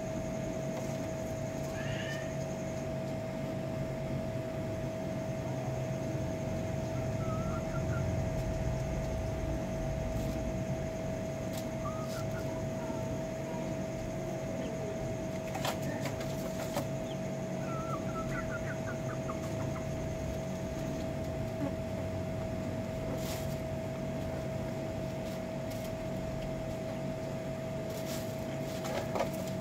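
A steady machine hum with a constant whine runs throughout. Over it come a few short, soft chirping calls from the chickens and some scattered faint clicks.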